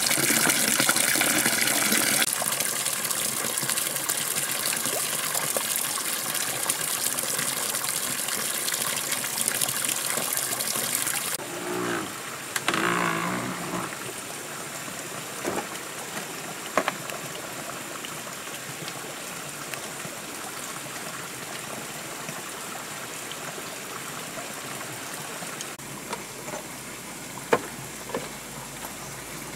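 Water pouring from a bamboo pipe and splashing into a plastic-lined pool, loudest for the first couple of seconds, then a quieter steady trickle. A few short knocks come later.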